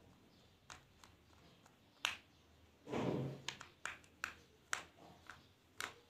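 Small metal parts of a Chinese B2 air rifle's trigger assembly clicking and tapping as hands fit a small screw into it, about eight sharp clicks in all, with a short scraping rustle about three seconds in.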